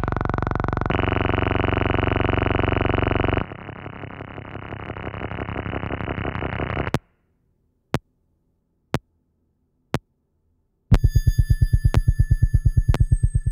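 Electroacoustic synthesized music: a dense, rapidly pulsing chord cuts off about three and a half seconds in, a quieter grainy texture swells and stops dead about seven seconds in, and three single clicks fall a second apart in silence. From about eleven seconds a fast-pulsing low tone with thin, high, steady tones over it takes over.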